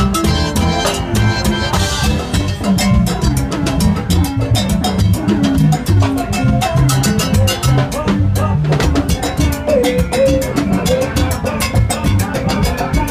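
Loud Latin-style dance music with a steady, driving drum beat and heavy bass, played over a parade float's loudspeakers.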